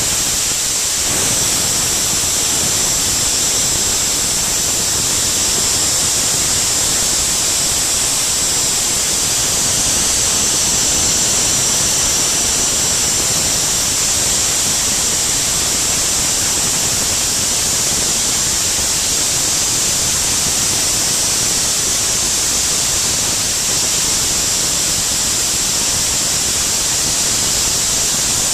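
Soda Works Buster Blaster 100 soda blaster in use, its nozzle shooting baking soda in compressed air: a loud, steady hiss that holds without a break.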